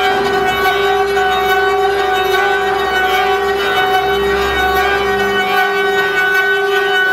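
Six-spindle CNC faucet peeling machine running, its spindles giving a steady whine over machining noise as they cut brass faucet bodies. A low rumble underneath drops away about five and a half seconds in.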